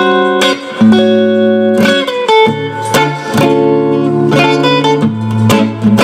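Electric guitar played through a Fender Princeton '68 reissue combo amp, a series of chords and single notes struck every half second to a second and left to ring.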